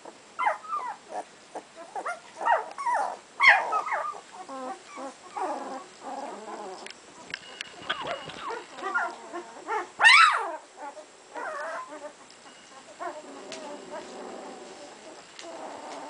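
Two-week-old puppies whimpering in many short, high calls that rise and fall in pitch, the loudest about ten seconds in. Near the end the calls give way to softer, lower sounds.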